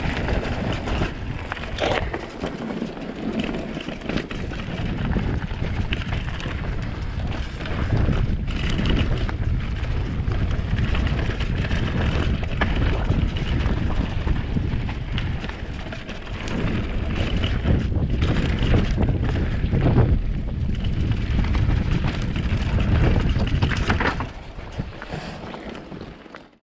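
Mountain bike rolling fast down a dirt trail: wind rushing over the microphone and tyres on the dirt, with frequent knocks and rattles of the bike over bumps. It fades out in the last couple of seconds.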